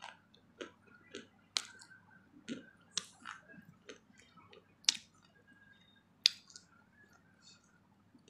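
Close-miked mouth sounds of someone chewing: scattered wet clicks and smacks of the lips and tongue, with a few sharper clicks spread through.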